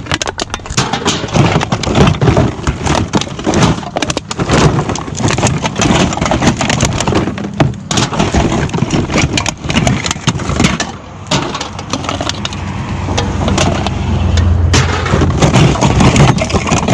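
Scrap aluminum clattering and crunching as it is handled, a dense run of irregular metallic knocks and rattles. From about twelve seconds in a vehicle engine idles underneath, getting louder toward the end.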